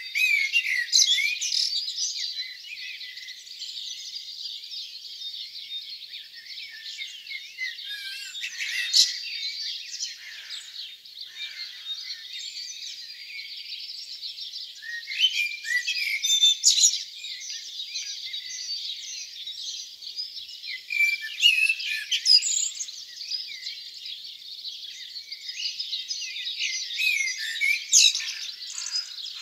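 Dawn chorus: many songbirds singing at once in a dense, overlapping mix of chirps, trills and whistled phrases, with louder phrases standing out every few seconds.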